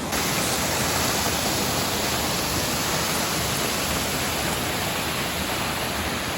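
Large waterfall: a loud, steady rush of falling water.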